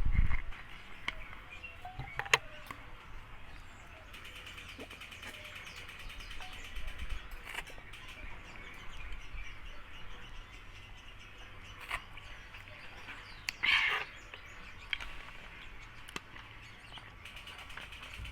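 Close-up eating sounds from chicken curry with ketupat: chewing, with a few sharp clicks and one short, louder crunchy burst near the middle. Birds chirp faintly in the background.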